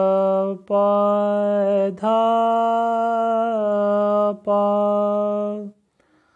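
Male voice singing long held notes on an open vowel, slow alaap-style phrases in Raag Kamod, each note sustained for one to two seconds with slight glides between pitches and short breaks for breath. The singing stops about six seconds in.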